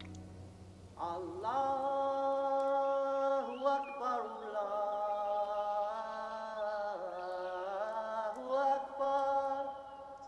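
Muezzin's call to prayer: one man's voice singing long held notes that slide and waver between pitches, starting about a second in.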